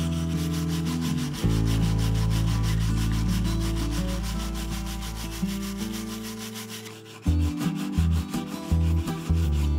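Steel wire brush with a wooden handle scrubbing along the grain of a cedar board in quick back-and-forth strokes, texturing the wood surface. Background music with held low notes plays underneath.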